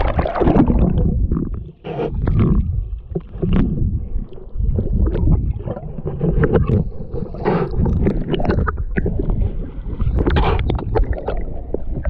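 Water sloshing and splashing against a waterproof action camera as it moves in and out of shallow water, heard muffled and low through the housing, with many small splashes and knocks against it.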